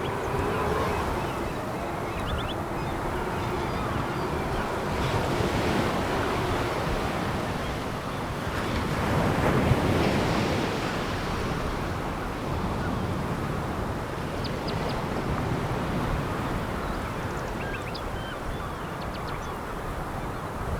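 Sea waves breaking and washing over a pebble beach, a steady rush that swells to a louder surge about ten seconds in, with scattered faint clicks of stones.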